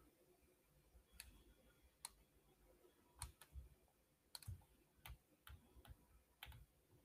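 Near silence broken by about ten faint, irregularly spaced clicks of computer keys being pressed.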